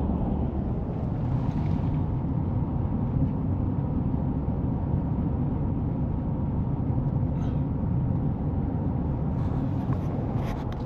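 A vehicle engine running steadily, a low even rumble with no change in speed.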